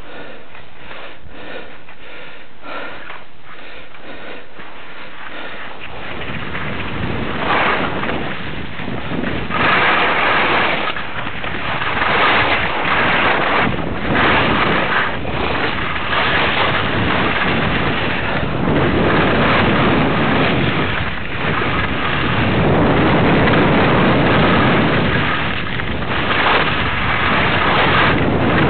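Wind rushing over the microphone and skis hissing and scraping over softened snow on a downhill run. It gets louder about six seconds in as speed builds, then comes in repeated surges with the turns.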